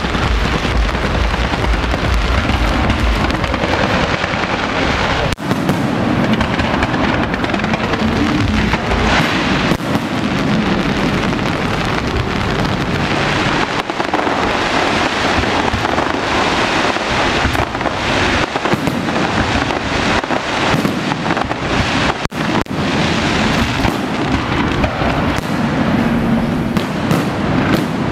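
Aerial fireworks barrage: shells bursting and crackling overhead in a dense, continuous stream without pause.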